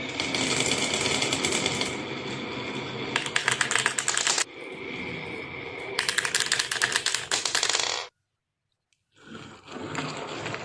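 Marbles rolling and clattering down a wooden marble run, with runs of rapid clicking. The sound cuts off abruptly about eight seconds in and picks up again a second later.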